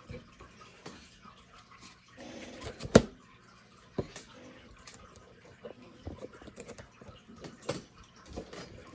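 Trading cards being handled: brief rustling and scattered light taps and clicks, with one sharp knock about three seconds in.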